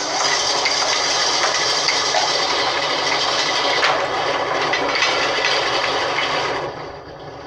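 A large vertical band saw cuts lengthwise through a log with a loud, steady sawing noise from the blade in the wood. Near the end the noise eases off and becomes quieter.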